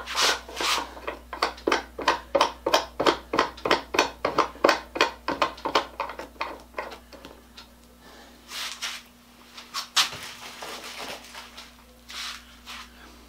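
Rapid metallic clicking, about four clicks a second, as hands work the swivel base of a small bench vise, thinning to scattered handling rustles after about seven seconds. A faint steady hum runs underneath.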